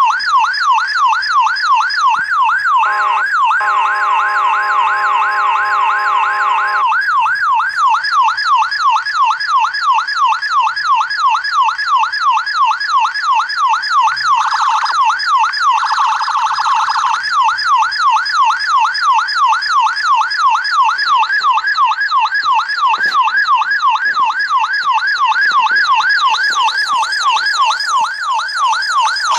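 Police car siren in fast yelp mode, its pitch rising and falling about three times a second without a break. About three seconds in, a steady horn blast sounds over it for about four seconds.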